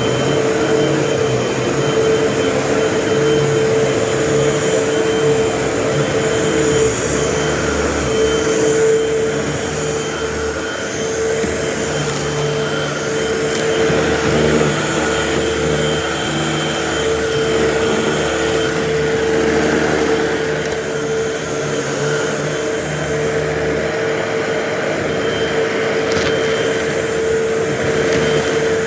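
Vacuum cleaner running steadily: a constant motor whine over a rush of air that swells and fades slightly.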